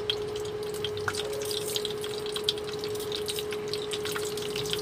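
Oil sizzling in a nonstick frying pan with herbs and peeled shallots, with irregular small crackles and pops. Under it runs a steady hum from the induction cooktop.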